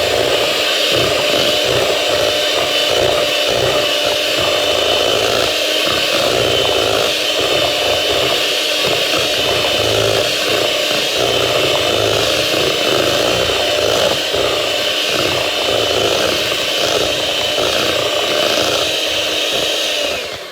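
Electric hand mixer running steadily, beating hard-boiled egg yolks into a smooth deviled-egg filling; it switches off near the end.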